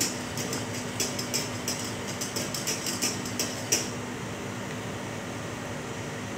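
Wire balloon whisk clinking against the sides of a stainless steel saucepan as sugar and water are stirred together to dissolve for macaron syrup; the quick ticks stop about four seconds in when the whisk is lifted out. A steady fan hum runs underneath.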